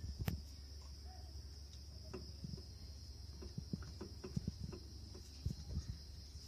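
Scattered light clicks and taps of hand tools working the 12 mm nut off an air-conditioner compressor's clutch plate, over a steady high-pitched insect trill and a low hum.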